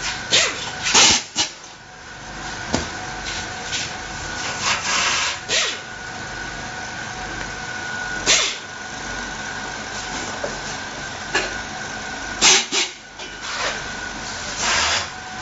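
Scattered sharp clicks and knocks, with a few short rustling bursts, from hands working on a gas water heater's brass valve body and sheet-metal casing, over a steady background hum with a faint high tone.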